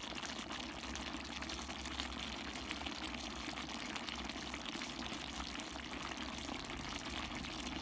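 Coconut-milk sauce of chicken-pork adobo simmering in a wide pan, bubbling steadily with fine crackles.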